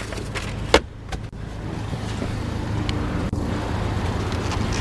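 A plastic glove box lid clicking shut about a second in, followed by a few light handling knocks over a low steady hum.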